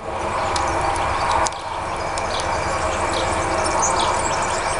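Bonsai scissors snipping a shoot off a Chinese elm: a sharp snip about a second and a half in, over steady background noise with scattered faint ticks.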